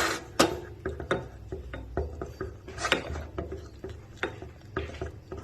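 Irregular light clicks and taps of a spoon against a bowl or cup while Cerelac is mixed with warm water.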